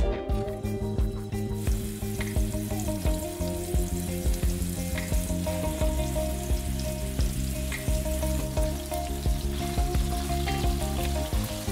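Raw flour-dusted minced-meat balls sizzling in shallow hot oil in a pan. The sizzle builds up a couple of seconds in as the balls go into the oil, then holds steady.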